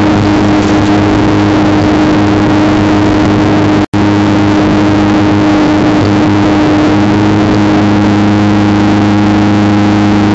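Hybrid remote-control mower's engine running at a steady speed, with the sound cutting out for an instant about four seconds in.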